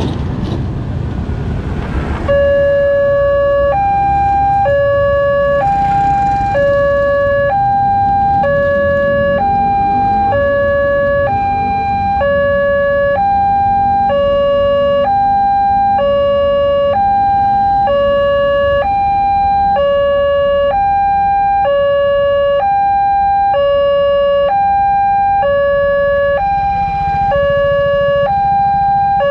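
Railway level-crossing warning alarm starting about two seconds in: an electronic two-tone signal alternating between a low and a higher note, about one full cycle a second, warning of an approaching train as the barriers close. It sounds over a steady low rumble of road traffic.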